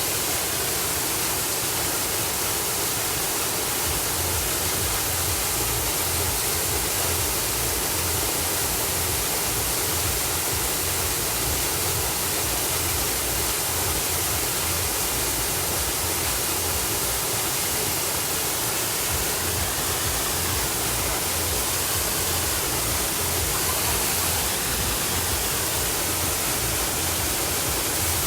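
Waterfall rushing: a steady hiss of falling water, with an irregular low rumble that begins about four seconds in.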